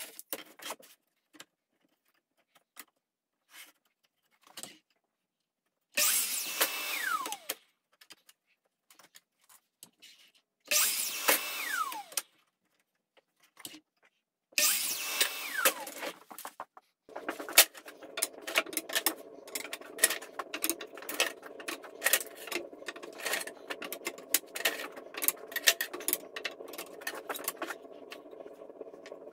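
A DeWalt sliding compound miter saw making three short cuts through wood. Each time the motor whines up, runs about a second and a half, then its pitch falls away as the blade spins down. About two-thirds of the way in, a steady hum with many sharp clicks and knocks takes over.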